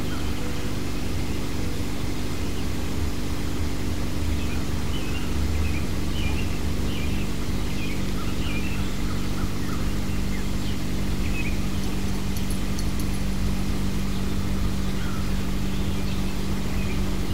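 A steady low machine hum holding several constant low pitches, with small birds chirping on and off over it.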